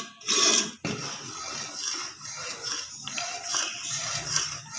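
A ladle stirring thick kheer in a cooking pot: a soft, uneven scraping and sloshing, kept up so the rice-and-milk mixture doesn't form lumps. A brief louder noise comes just after the start.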